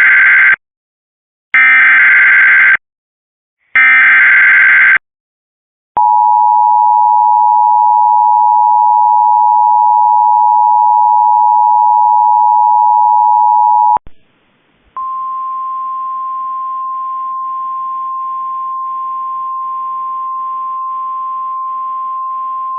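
Emergency Alert System tones: the tail of one digital header data burst and two more, about a second each and a second apart, then the two-tone EAS attention signal held steady for about eight seconds. After a short break comes a quieter single steady tone for about eight more seconds.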